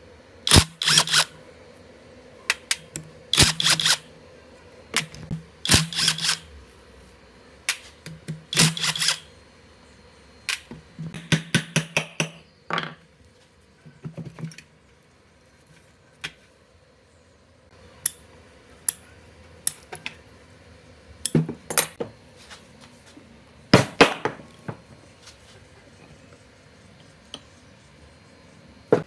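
Cordless impact wrench hammering in short bursts, about six of them in the first fifteen seconds, as it runs bolts out of a rusty motor housing's end cap. Scattered metal clanks and knocks follow as the loosened housing is handled and taken apart.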